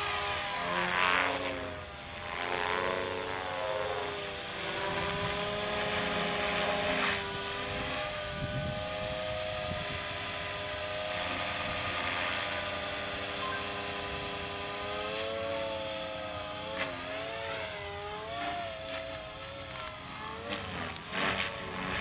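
Electric RC helicopter (Align T-Rex 500) in flight: a steady high motor whine with rotor sound whose pitch rises and falls as it manoeuvres. Toward the end the pitch wavers more and there are a few short sharp sounds.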